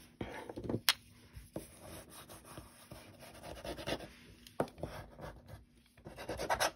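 Hands handling cardstock and thin double-sided tape strips: soft rubbing and scratching of paper, with a sharp click about a second in.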